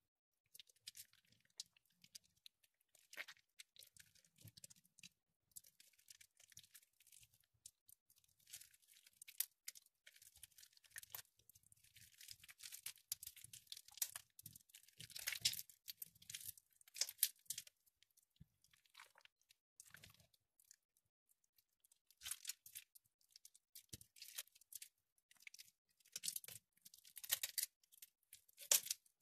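Soft, water-soaked bars of soap being squeezed and crumbled by hand: irregular runs of wet crackling and crunching, loudest about halfway through and again near the end.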